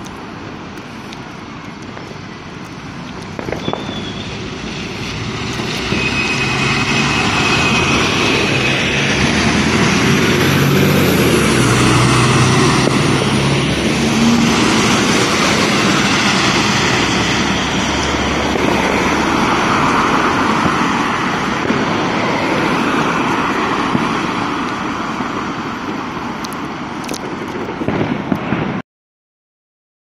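A coach approaching and passing close by on a wet road. The engine and tyre hiss build to a peak about a third of the way in, then a steady rush of traffic follows, and the sound cuts off abruptly near the end.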